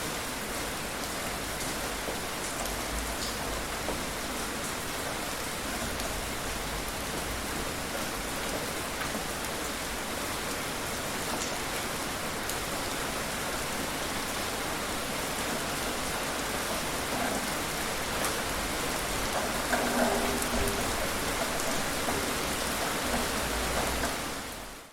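Moderate rain falling steadily: an even hiss with scattered drop ticks. It fades out at the very end.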